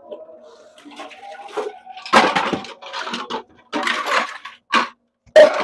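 Dishes being washed by hand: pots, plates and utensils clattering against one another in about five loud bursts, starting about two seconds in.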